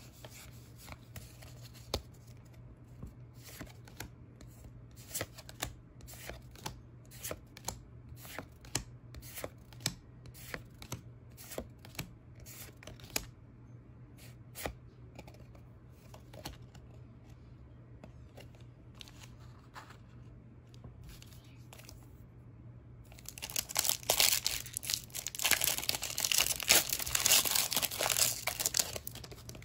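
Pokémon cards being flicked through one at a time, each card sliding off the stack with a soft click. About three-quarters of the way through, a foil booster pack is torn open and crinkled for several seconds, the loudest sound.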